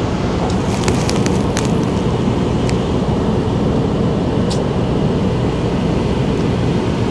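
Semi-truck's diesel engine idling with a steady low rumble, with a few light clicks in the first couple of seconds.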